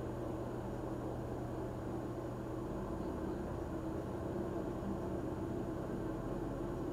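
Narrowboat's inboard engine running steadily under way, a continuous low drone with a hum that shifts slightly about two and a half seconds in.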